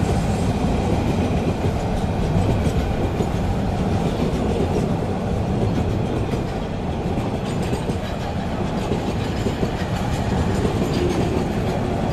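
Container freight train's wagons rolling steadily past on the rails at speed, a continuous rumble of wheels on track.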